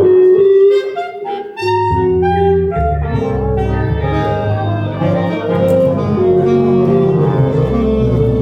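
Big band playing jazz: a held saxophone note and melodic line, joined about two seconds in by bass and the fuller band.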